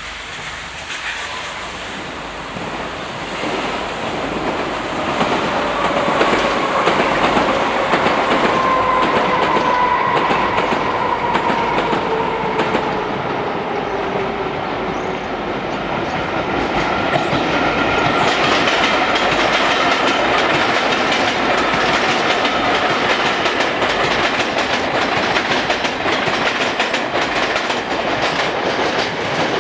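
Electric multiple unit running past the platform, wheels clicking over the rail joints, growing louder over the first few seconds. A whining tone falls slowly in pitch as it passes.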